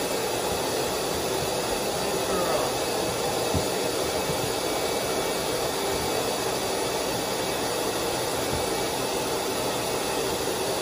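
A pet dryer blowing with a steady hiss.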